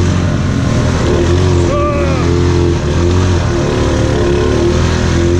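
ATV engine running steadily under load, with a short shout about two seconds in.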